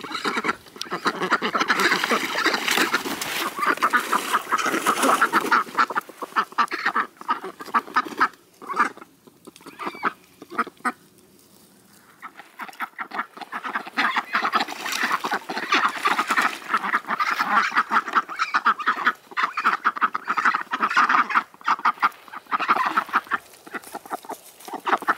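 A group of domestic ducks quacking in rapid, continuous chatter, with a quieter stretch about halfway through.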